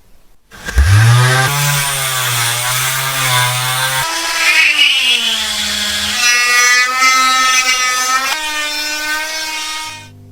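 An electric power tool motor spins up about half a second in and runs with a wavering whine as it works under load. The pitch and character change abruptly a few times, and it stops just before the end.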